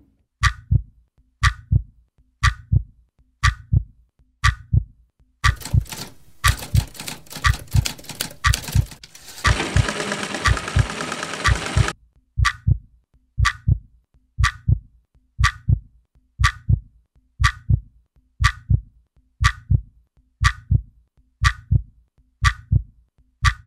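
Heartbeat-like sound effect: a pair of low thumps about once a second, each with a sharp tick like a clock. From about five seconds in a dense scratchy noise builds over it, loudest for the last few seconds before it cuts off about twelve seconds in. The thumps and ticks then carry on alone.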